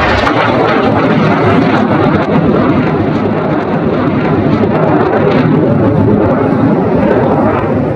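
A stealth fighter jet flying overhead: loud, steady jet engine noise.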